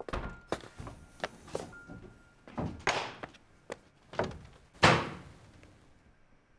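Door slamming shut with a sharp thud that rings on for about a second. Before it come several light knocks and clicks and a noisy rush, like a door being pulled open.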